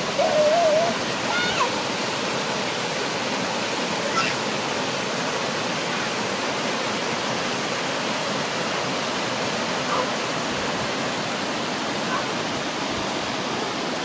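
Fast mountain stream water rushing over smooth granite chutes and small falls, a steady rushing. Just after the start comes a short wavering voice-like call, and there are a few faint short sounds later.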